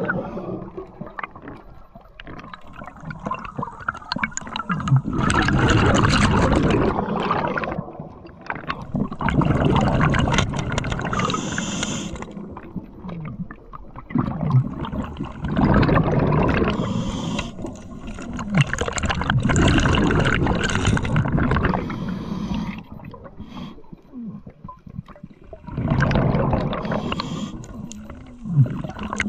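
Scuba diver breathing through a regulator underwater, the exhaled bubbles gurgling in surges every few seconds with quieter gaps between breaths.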